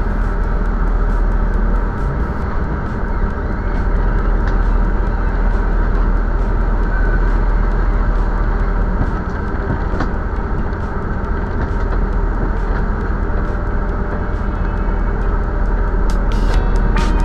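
Motorhome driving on the road: a steady drone of engine and road noise, with a few faint ticks.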